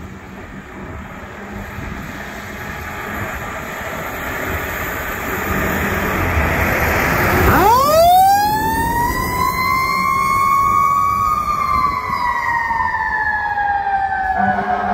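Fire engine approaching, its engine noise growing steadily louder. About halfway through its siren starts, sweeping sharply up in pitch, then falling slowly as the truck passes and moves away.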